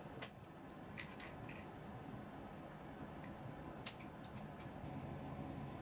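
Scissors snipping at a cat toy's card-and-plastic packaging: a few faint, sharp snips, the clearest near the start and one about four seconds in.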